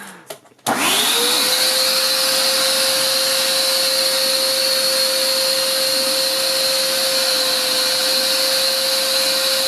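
Vacuum cleaner switched on less than a second in, its motor spinning up quickly to a steady high whine and running on evenly.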